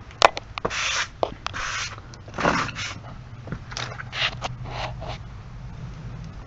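Several short rasping bursts from the recoil pull-starter cord of a Briggs & Stratton portable generator engine being pulled, without the engine catching.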